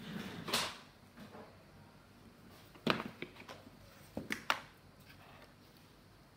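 A few sharp light clicks and taps from small objects being handled at a table, a cluster about three seconds in and another around four and a half seconds, after a soft rustle about half a second in.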